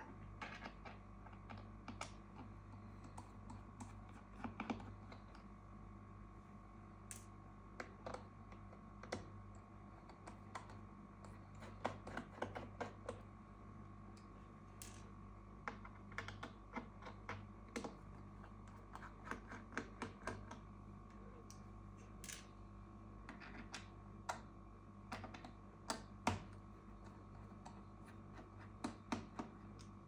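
Small, sharp, irregular clicks and ticks of a precision screwdriver turning pentalobe screws out of a MacBook Air's aluminium bottom case, with now and then a screw set down in a tray; some clicks come in quick clusters.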